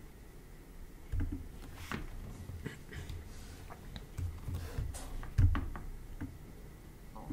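Scattered soft clicks and low knocks of hands working a computer's mouse and keyboard at a desk, with a louder knock about five and a half seconds in.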